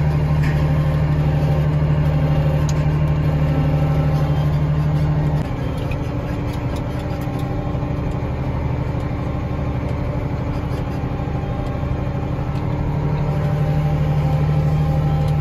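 Case IH Magnum 7230 tractor's diesel engine running steadily under load, heard from inside the cab. It eases off slightly about five seconds in and picks back up near the end.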